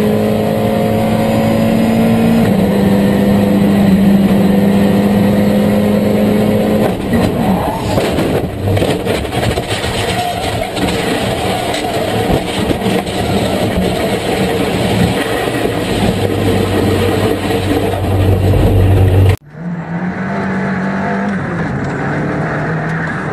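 A McLaren GT race car's engine heard from inside the cockpit, holding a steady high note. About seven seconds in, the sound breaks up into a rough, noisy rumble as the car goes off. After an abrupt cut near the end, another car's engine runs, its pitch stepping up and down.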